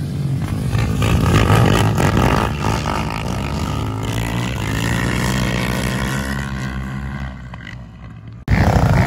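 Engines of quad bikes and dirt bikes racing past on a dirt track. The sound swells about a second in and fades away toward the end. Near the end it jumps suddenly to a louder, closer noise.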